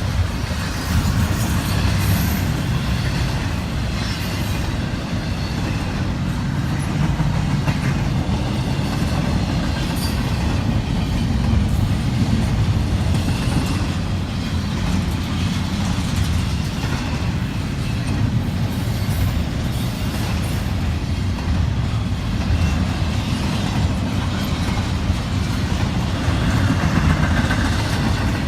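CSX intermodal freight train rolling past on the rails: a steady rumble with occasional clicks from the wheels.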